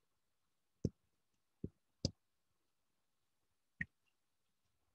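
Four faint, short clicks spread over a few seconds against near silence.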